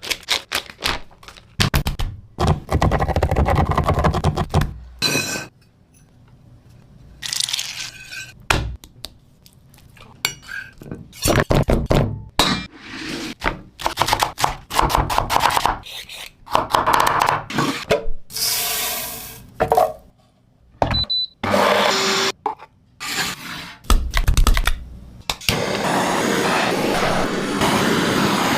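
A quick series of kitchen preparation sounds cut one after another: utensils scraping and knocking against dishes and pans, with a steady hissing stretch near the end.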